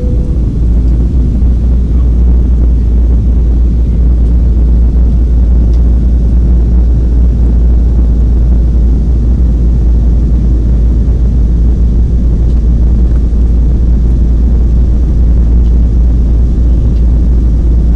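Steady low rumble of an airliner's cabin noise, engine and airflow heard from inside the cabin during the descent.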